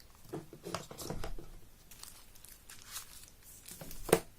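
Paper and packaging rustling and crinkling in irregular bursts as items are lifted out of a phone box, with one sharp tap about four seconds in.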